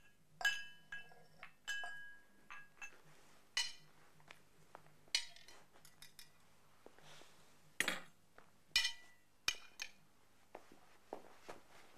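Foley clinks of glassware: about eight separate clinks spread out at uneven intervals, the first couple leaving a short bright ring.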